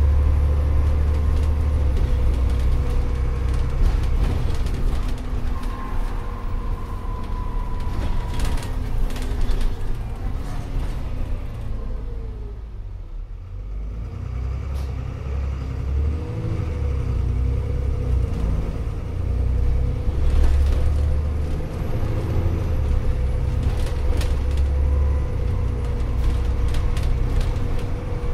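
A Dennis Trident Optare Olympus double-decker bus heard from inside while moving: a low engine drone with a steady drivetrain whine and frequent rattles. About halfway through, the whine falls and the sound eases as the bus slows almost to a stop. The whine then climbs again as it pulls away.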